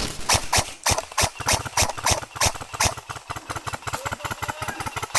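Airsoft gunfire: a fast, uneven clatter of sharp cracks and clicks, with louder shots about every half second and quicker small clicks between.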